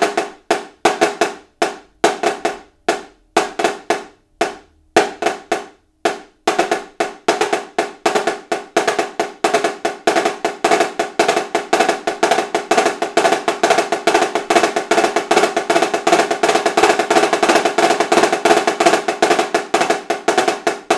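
Marching snare drum played with sticks, working through the 'blue cheese' hybrid rudiment: a cheese-type pattern in triplets with a flam on the second note of the double. It starts in short separate groups with gaps, then about six seconds in runs on as a dense, unbroken stream of strokes.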